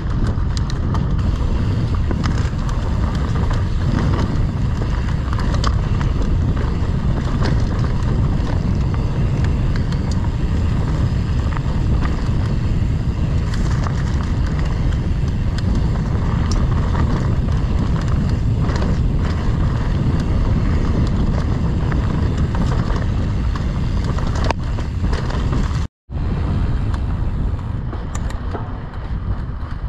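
A Fezzari Cascade Peak mountain bike riding a dirt trail at speed: steady wind rush on the microphone with tyre rumble and scattered clicks and rattles from the bike. The sound cuts out for a moment a few seconds before the end.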